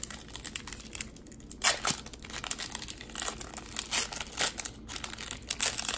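Foil trading-card pack wrapper being torn open and crinkled by hand, an irregular crackling with a sharper crackle a little under two seconds in.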